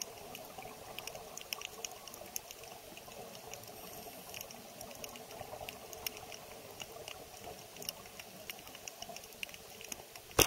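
Underwater ambience heard through a submerged camera: a steady low rushing hiss with many irregular sharp clicks and crackles, and one loud click near the end.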